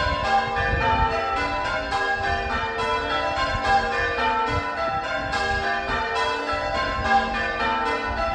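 Ring of six church bells (five Pennington bells of 1789 and a 1921 Taylor treble, tenor about 8 cwt in G) being change rung: a steady, even run of strikes, several a second, each note ringing on into the next. The ringers call these bells odd-struck.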